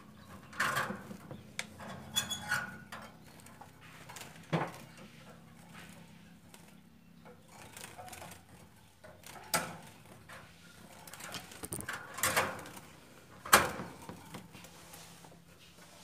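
Irregular clinks and knocks of a nectar feeder cup being handled and fitted against the bars of a metal-wire bird cage, the loudest knock near the end, while a small bird flutters inside the cage.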